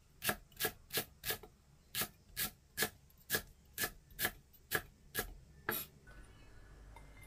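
Wide-bladed kitchen knife chopping pandan leaves on a wooden chopping board: a steady run of sharp chops, about two to three a second, each blade striking the board. There is a short pause after the first few, and the chopping stops about six seconds in.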